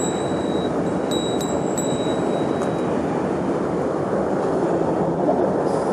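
Mountain stream rushing steadily, an even noise of flowing water. A faint, thin, high whistling tone comes and goes on top of it during the first half.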